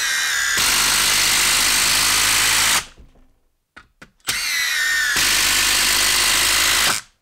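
Milwaukee 1/4-inch impact driver driving long lag screws into a log, in two runs. Each run starts with a brief motor whine and goes into the rapid, steady hammering of the impact mechanism under load. The first run stops a little before three seconds in; the second starts over a second later and stops near the end.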